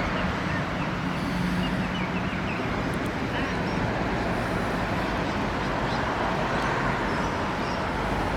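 Steady background rumble and hiss, with a low hum during the first two or three seconds.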